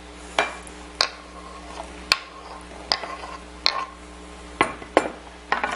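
Chef's knife scraping and tapping chopped garlic off a wooden cutting board into a glass bowl: a series of short, sharp knocks and scrapes at irregular intervals, a little more than one a second.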